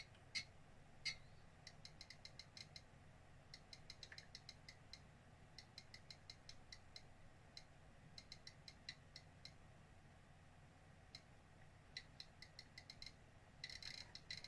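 Faint runs of small, sharp clicks, several a second in uneven bursts, with pauses between them and a denser cluster near the end.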